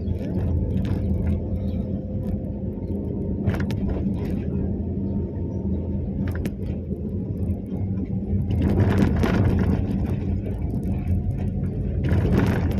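Vehicle engine idling steadily while stopped in a queue, a low even hum, with two louder swells of road noise about two-thirds in and again near the end.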